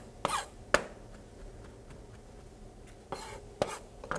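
Chef's knife chopping herbs on a white cutting board: three sharp knocks in the first second, a pause, then a few more knocks from about three seconds in.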